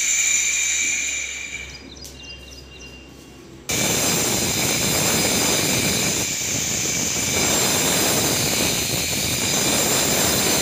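Handheld electric cutter running at high speed with a high whine, then cutting into a plastered ceiling from about four seconds in, a loud steady grinding noise as the wall is chased for wiring.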